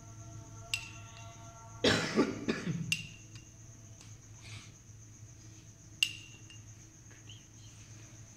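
Metal teaspoon clinking against a porcelain teacup three times, each a short ringing clink, as liquid is spooned out of the cup. A short, loud burst of noise about two seconds in.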